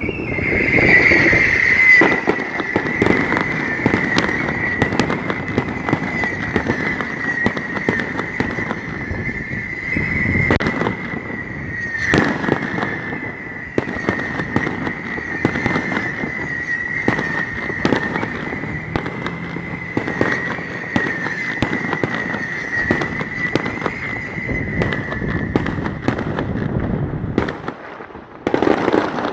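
Fireworks going off in rapid succession: a string of bangs and crackles from aerial shells bursting, with a steady high whistle running underneath that stops a few seconds before the end. Near the end there is a brief lull, then one more burst.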